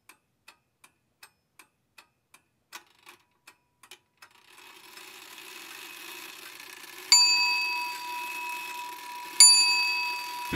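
Soundtrack effects: a clock ticking about three times a second for the first four seconds, then a faint low hum comes in and a bell dings twice, each strike ringing out slowly.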